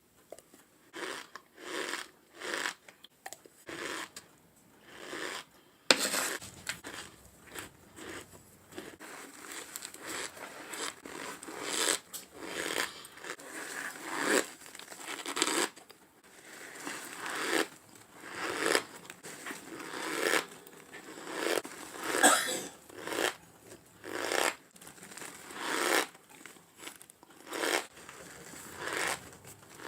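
Squeaky crunching of packed cornstarch being bitten and chewed, in repeated irregular bursts about every one to two seconds.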